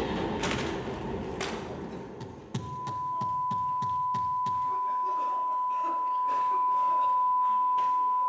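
Staged rifle gunfire ringing out in a hall: two sharp bangs in the first second and a half. About two and a half seconds in, a steady high-pitched beeping tone begins and holds unbroken, the ringing-ears effect that follows the shots.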